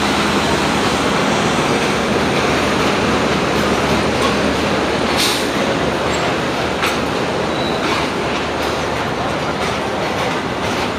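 Passenger train rolling into a station platform: a steady rumble of wheels on the rails, with a few sharp clicks as the wheels cross rail joints.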